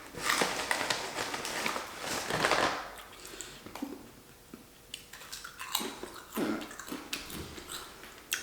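Close-miked mouth sounds of a person chewing instant ramen noodles: irregular bursts of chewing with small clicks, busiest in the first few seconds and sparser later.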